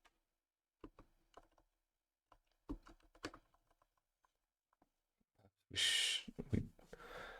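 Typing on a computer keyboard: scattered single keystrokes and short runs of clicks, then a louder burst of noise about six seconds in that lasts until near the end.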